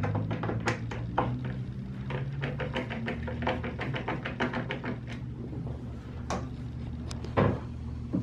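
Screwdriver turning the adjustment screws on a cabinet door's concealed hinge to close the gap between the doors: a quick run of small clicks, about five a second, then a few scattered clicks and one louder knock near the end.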